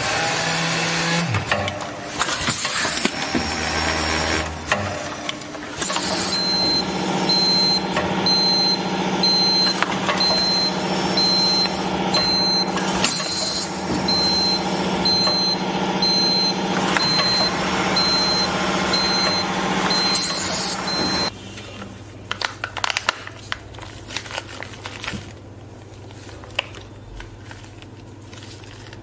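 Spout-pouch filling and capping machine running: a steady motor hum with short hissing bursts now and then, and a short high beep repeating about once a second. About two-thirds of the way through it gives way to a much quieter low hum with scattered light clicks.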